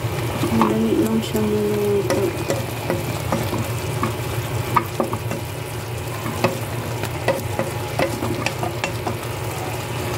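Wooden spatula stirring squash, chicken and malunggay (moringa) leaves in a pot of hot broth, with scattered light knocks of the spatula against the pot over a steady cooking noise underneath.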